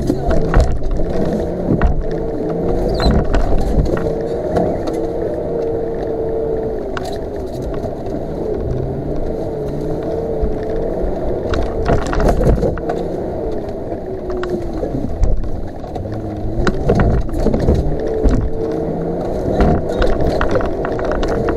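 Off-road 4x4 driving over a rutted, snowy dirt track: engine and drivetrain running with a whine that wavers up and down in pitch, and scattered knocks and rattles as the suspension takes the bumps.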